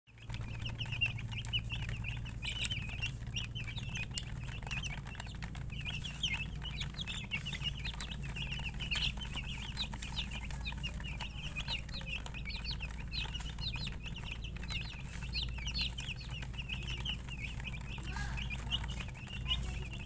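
A flock of young chicks peeping continuously, many short high chirps overlapping one another, over a steady low hum.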